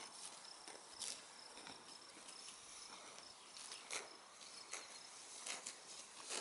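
Red Devon cattle cropping grass close by: irregular, sharp tearing and crunching sounds as they pull up and chew mouthfuls of grass, over a faint steady chirping of insects.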